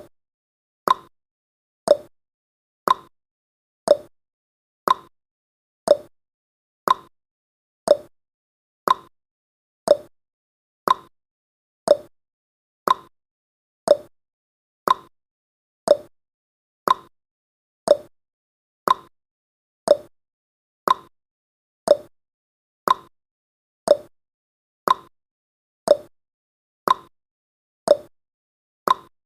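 Countdown timer's ticking sound effect: one short, sharp tick every second, evenly spaced, with silence between ticks.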